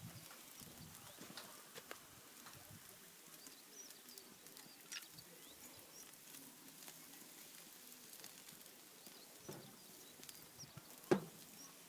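Open wood fire crackling faintly, with scattered small pops and one sharper pop near the end.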